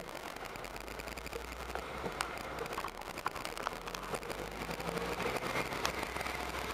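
Low, steady engine and road hum inside a car's cabin while driving in slow city traffic, with scattered light clicks and rattles from the handheld camera.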